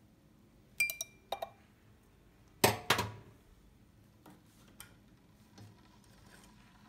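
Kitchenware being handled: a few light clinks, one with a brief ringing tone, then two louder knocks close together about three seconds in, and a few soft taps afterwards, from an enamelled pot, a glass thermometer and a plastic bottle on a glass-ceramic hob.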